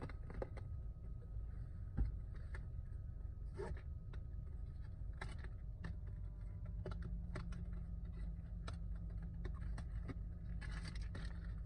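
Scattered light clicks and taps from handling small objects, with one louder knock about two seconds in, over a steady low hum that gains a low steady tone about halfway through.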